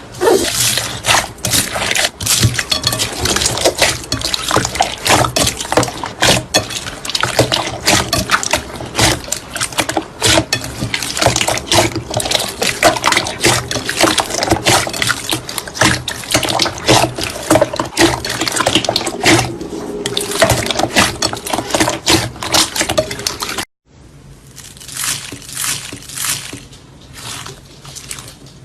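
Slime being squeezed and worked by hands: dense, wet crackling and popping clicks. It cuts off abruptly near the end, then goes on as quieter, sparser squishy clicks.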